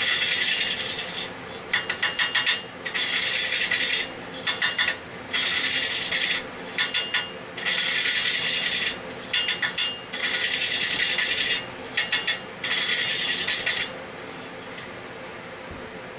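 A valve being hand-lapped into its seat in a 3.5 hp Briggs & Stratton Kool-Bore engine block: the valve face grinds against the seat through 280-grit lapping compound as a suction-cup lapping stick is spun back and forth by hand, making a gritty rasp. It comes in repeated rounds, each a long rasp followed by a few quick short strokes, and stops about two seconds before the end.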